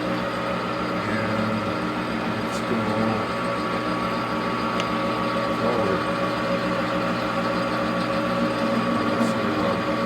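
Grizzly metal lathe running at 360 RPM with the carriage power feed engaged, driving the carriage along the rack through its newly cut pinion gear: a steady mechanical whine and gear hum with a few faint ticks.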